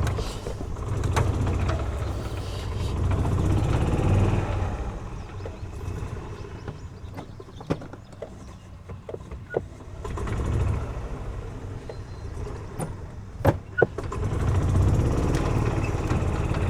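Golf cart running in several surges as it pulls on a rope tied to a broken tree limb, with a few sharp knocks, two close together a little before the last surge.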